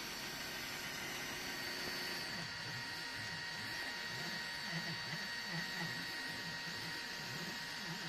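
EasyThreed K10 mini 3D printer running a print: a steady high whine with a low motor hum, whose low tones start rising and falling quickly about two seconds in as the stepper motors move the print head and bed.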